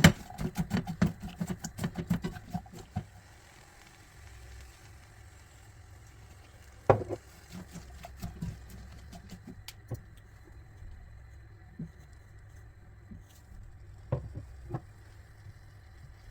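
Kitchen handling sounds: a quick run of knocks and clicks for about three seconds, then a single sharp knock about seven seconds in and a couple more near the end, over a low steady hum.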